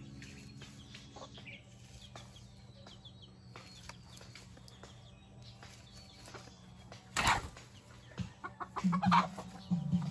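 Domestic chicken clucking in short calls near the end, with a short loud noise about seven seconds in.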